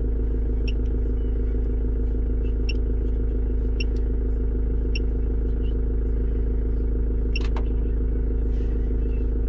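Ford Transit 2.0 TDDi four-cylinder diesel idling steadily, heard from inside the cab. Short electronic beeps from a handheld scan tool's keys sound every second or so as its menu is scrolled.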